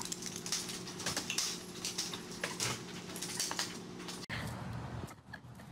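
A plastic lattice baby gate clattering and rattling as a small dog shoves against it and knocks it down, over a steady low hum. About four seconds in, the clattering stops abruptly and gives way to quieter sound with a few scattered clicks.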